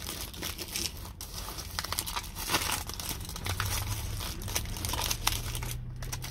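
Aluminium foil wrapper being crinkled and peeled open by hand around a taco: a dense, continuous run of crackling and rustling that thins out near the end.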